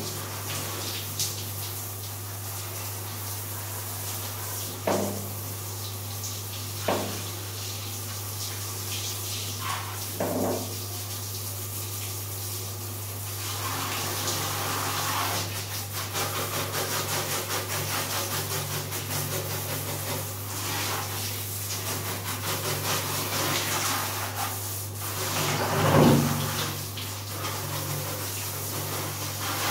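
Water spraying from a handheld shower sprayer onto a small dog and the tiled floor: a steady hiss over a constant low hum, with a few brief sounds, the loudest near the end.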